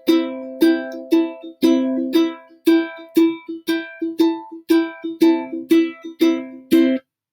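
Ukulele strummed in a steady rhythm, about two chord strums a second, accompanying the verse of a children's song for listeners to sing along; the strumming stops near the end.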